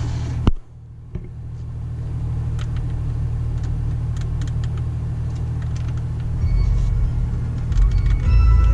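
Steady low rumble of the BMW X4 M40i's turbocharged straight-six idling, heard from inside the cabin, broken by a click and a brief drop in level about half a second in. Near the end, music with heavy bass starts up over it from the car's Harman Kardon stereo.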